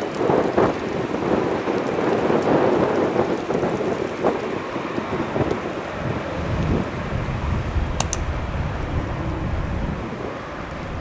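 Jet airliner engine noise, a steady rushing rumble that deepens to a lower rumble about halfway through. There is a short click about eight seconds in.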